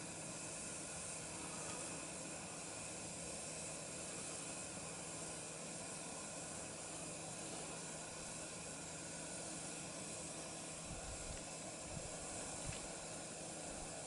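Steady, even hiss of outdoor background noise, with a few soft low bumps near the end.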